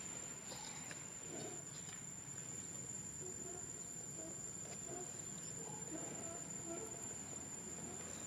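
Steady high-pitched drone of insects in the forest, one unbroken tone, with faint short sounds scattered underneath.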